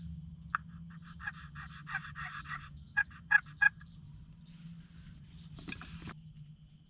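Friction turkey pot call worked with a striker. One short note, then a fast run of yelps, then three loud sharp clucks about a third of a second apart, and a brief scratchy rub near the end. The call has been dampened by morning dew and is being tried with a freshly sanded striker tip.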